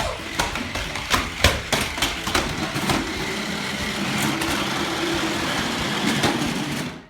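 Toy remote-control cars running, with a cluster of sharp knocks and clatter over the first few seconds. Then comes a steady motor whir with a wavering hum, which cuts off suddenly at the end.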